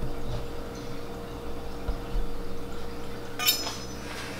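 Quiet kitchen room tone with a faint steady hum, a couple of soft bumps about halfway through, and a brief scrape near the end as a carving fork is pushed into the corned beef on the wooden cutting board.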